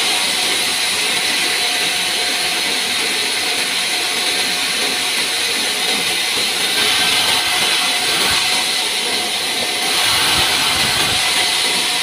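Sawmill band saw running and ripping pine logs into boards: a steady, loud hiss of the blade cutting wood, with a constant tone underneath.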